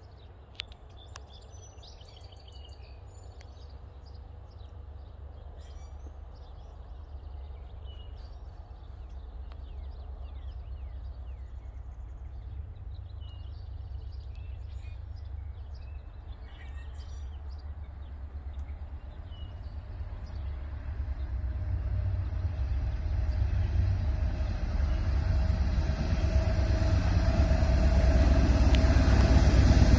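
A Norfolk Southern freight train approaching, its diesel locomotives' low rumble growing steadily louder. Birds chirp in the first half, and a high hiss joins about halfway as the train nears.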